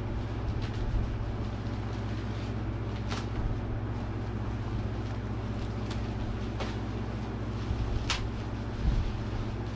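Bubble wrap rustling and crackling as it is pulled open by hand, with a few sharp crackles standing out, over a steady low hum.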